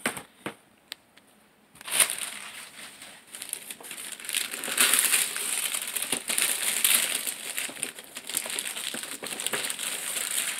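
Wrapping paper being torn off a present and crumpled: a few light clicks at first, then about eight seconds of continuous crinkling and rustling.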